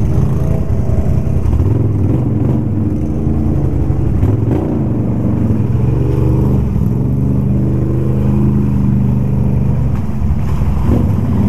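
Can-Am ATV engine running close by, its pitch rising and falling with the throttle as the machine moves along.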